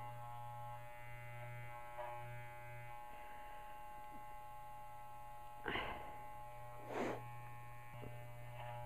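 Corded electric dog clippers running with a steady buzz while shaving a dog's face. Near the end there are two short, louder noisy bursts about a second apart.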